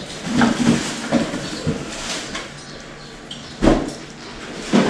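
Hands gripping and twisting a Harley-Davidson's stock oil filter, trying to loosen it by hand: a series of short, irregular knocks and scuffs, with one heavier thump near the end.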